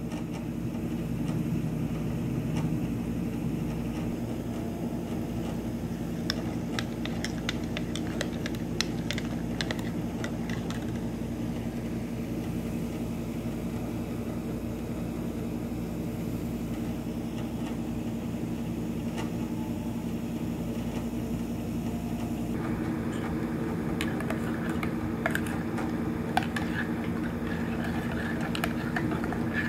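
A steady low machine hum, with scattered light clicks and taps about six to ten seconds in and again near the end.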